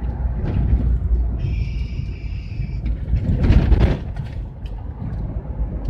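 Steady low engine and road rumble heard from inside the cab of a moving GAZelle van. A brief high steady tone comes in about a second and a half in, and a short louder noise rises and falls around three and a half seconds in.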